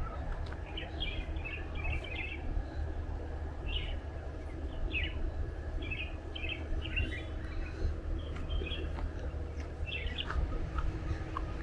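Several birds chirping in short, scattered phrases, over a steady low rumble.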